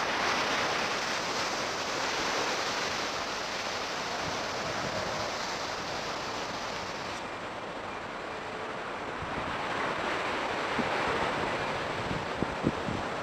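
Ocean surf breaking on the beach in a steady wash that swells and eases, with wind on the microphone. A few faint knocks come near the end.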